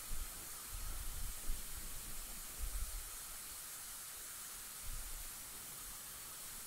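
Steady hiss with a few soft low bumps now and then.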